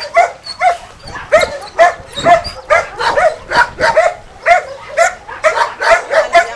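A dog barking repeatedly, about two to three sharp barks a second.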